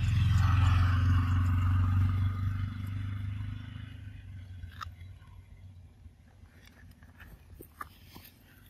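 A motor vehicle passing on the road, loudest at the start and fading away over the first few seconds, followed by a few faint, sharp clicks.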